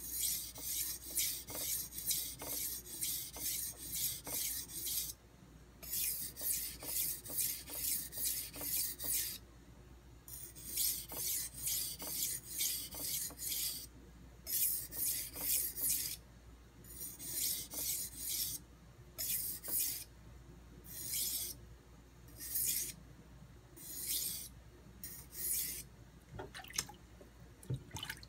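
Steel Santoku blade stroked across an extra-hard 1000-grit Nubatama Ume whetstone, a scratchy rasp with each pass. For the first half the passes come about two a second in runs with short pauses, then as single strokes about a second apart, with a couple of light clicks near the end.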